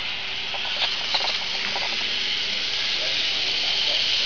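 N-scale model electric locomotive running with its train on sectional track: a steady, high whirring hiss of the small motor and wheels, growing louder near the end.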